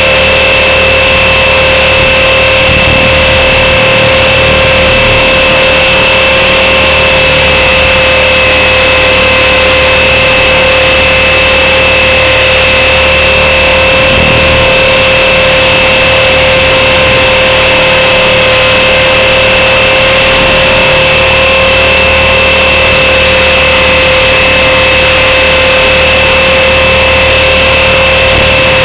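Blade 400 electric RC helicopter in flight, heard very close from a camera mounted on it: a loud, steady whine from the motor and rotors, holding one pitch throughout, with rushing noise underneath.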